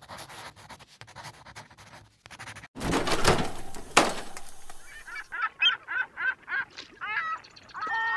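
Intro sound effects: faint scratchy strokes of chalk writing, then a loud rushing noise about three seconds in that ends in a sharp hit around four seconds. From about five seconds in comes a run of short, repeated honking bird calls, several a second.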